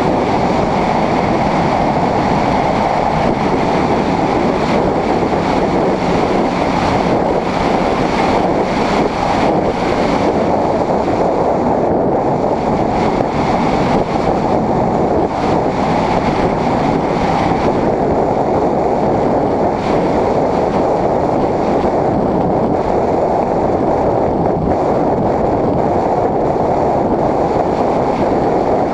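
Loud, steady wind rush on the microphone of a GoPro riding on a moving Honda CBR600RR sport bike, mixed with the motorcycle's running noise.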